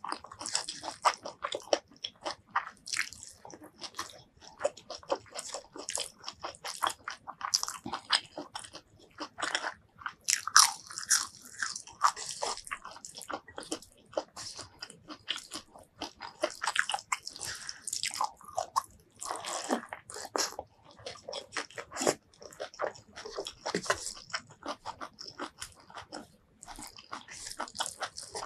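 Close-miked chewing of crunchy food, a dense, irregular run of crisp crunches and wet chews. The mouthful is rice with fried roselle leaves and bamboo shoots.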